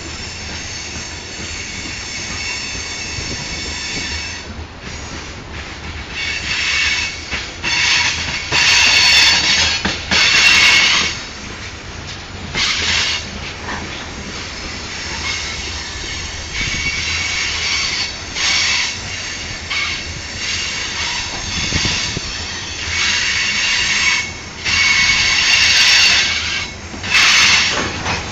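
Norfolk Southern grain train's covered hopper cars rolling past on a curve, their wheels squealing in high-pitched bursts that come and go over the low rumble of the cars. The squeal is flange squeal from the wheels grinding against the rail through the curve.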